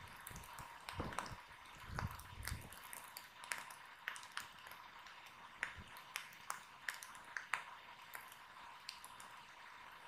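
Wood fire crackling, with irregular sharp pops and a few low thumps in the first few seconds.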